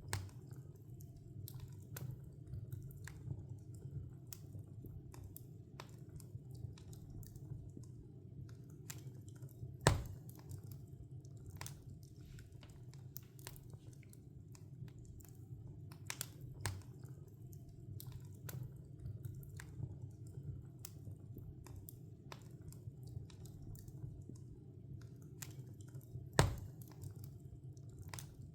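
Wood log fire crackling, with many small sharp pops and two louder pops, one about a third of the way in and one near the end, over a steady low rumble of the burning fire.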